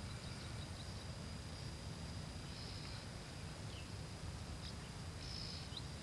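Quiet grassland ambience: a steady low rumble under a thin, steady high-pitched insect note, with a few faint, short high chirps about halfway through and again near the end.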